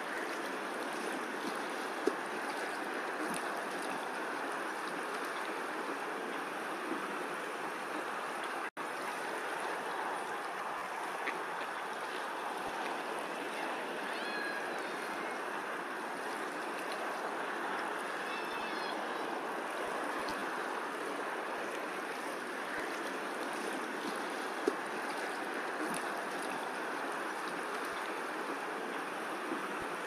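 Steady rushing of flowing water, with faint bird chirps twice near the middle. The sound drops out for an instant about nine seconds in.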